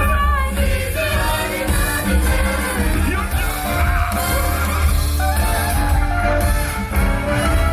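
A stage-show song played loud over outdoor speakers: singing over a pop backing track with a heavy bass.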